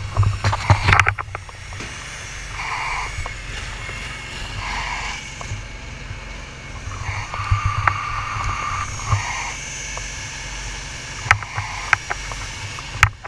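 Sound heard from inside a commercial diving helmet as the diver climbs out of the water onto the deck: muffled knocks and clunks of the helmet and gear against the ladder and deck, a cluster of them about a second in and more near the end, over a steady low rumble.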